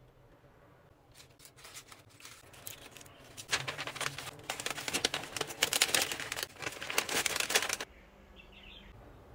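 Sheets of printed paper rustling and crinkling as they are handled and folded around a bouquet of paper roses. The sound builds, is loudest through the middle and cuts off sharply near the end.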